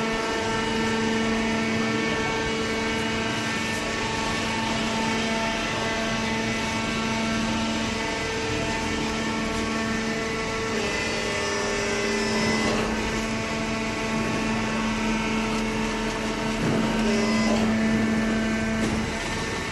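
Hydraulic cardboard baler's power unit running: a steady machine hum with a whine, whose pitch shifts a little about halfway through and again near the end.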